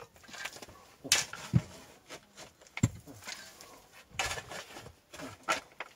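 A hand hoe striking and digging into packed dirt, several irregular chopping strikes with scraping of soil in between.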